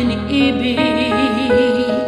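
A woman sings a long held note with a wide, even vibrato over a keyboard backing track.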